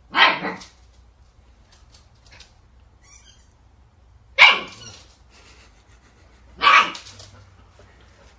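A puppy barking: three short barks, a couple of seconds apart.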